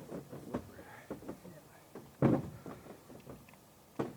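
Knocks and thumps of a moose carcass being heaved and shifted on wooden boards into a pickup truck bed, several separate hits with the loudest, deepest thump about two seconds in.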